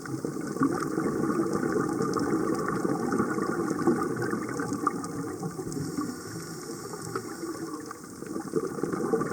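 Steady water noise with fine crackling ticks through it.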